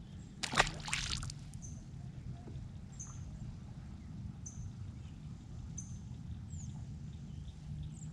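A small bass dropped back into the lake with a short splash about half a second in. Afterwards only faint water and outdoor ambience, with faint high bird chirps every second or so.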